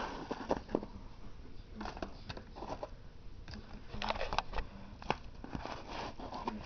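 Handling of fireworks packs: scattered light clicks and rustles of cardboard and plastic wrapping, with short bursts of rustling about two and four seconds in.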